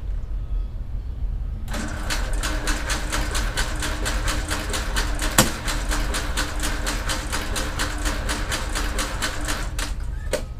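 Starter cranking the right engine of a Cessna 310, a Continental six-cylinder, starting about two seconds in: an even chug of about four to five compression strokes a second over the starter's whine. The engine does not catch and the cranking stops near the end, with a single sharp click about halfway through.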